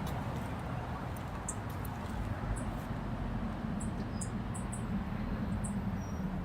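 Outdoor ambience: a steady low rumble, with short high-pitched chirps scattered through it.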